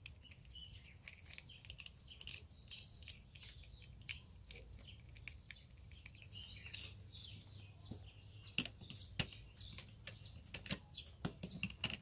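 Faint birds chirping in the background, with scattered sharp clicks and taps of tools and starter-motor parts being handled as the end cover is fitted. The clicks come more often in the second half.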